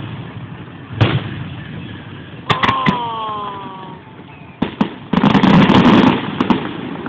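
Fireworks going off: single sharp bangs about a second in and near three seconds, the second followed by a falling tone, then a dense rapid volley of crackling bangs about five seconds in.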